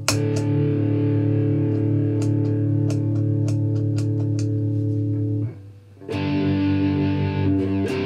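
Electric guitar played through a Visa Distortion pedal fitted with a new 3PDT true-bypass footswitch, giving a full, distorted sound. The tone jumps louder with a click right at the start. A held chord rings until it is cut off about five and a half seconds in, then a new chord is struck about half a second later. The switch is now passing the full signal without dropouts.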